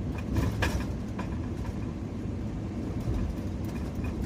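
2014 Ford Econoline van driving, with a steady low rumble of engine and road noise and a few brief knocks or rattles in the first second or so.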